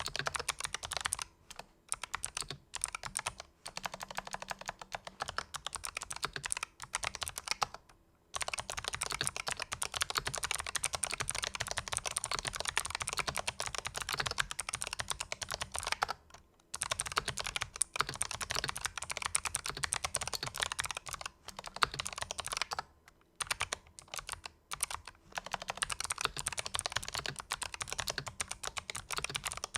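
Fast typing on a Razer Huntsman Elite keyboard fitted with fully lubricated purple clicky optical switches: a dense run of key clicks, broken now and then by short pauses.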